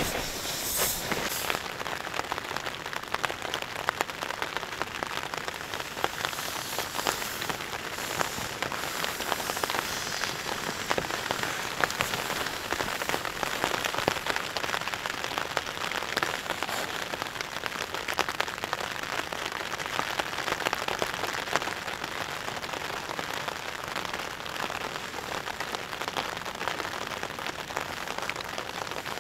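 Steady rain falling on the tent, heard from inside: a dense, even patter of drops on the fabric.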